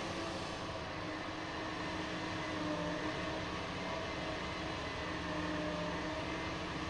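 Cat 6020B hydraulic mining shovel's V16 diesel engine running steadily as the machine works, a continuous drone with a steady hum in it.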